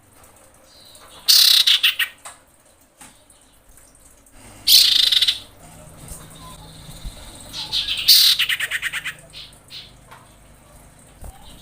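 Common iora calling, said to be a female in breeding condition calling males: three loud, rapid high trills, with soft level whistles between them.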